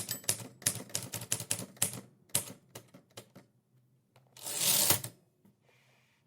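Typewriter keys striking in a fast run of clicks, slowing to a few separate strokes. About four and a half seconds in comes one longer sliding noise lasting under a second.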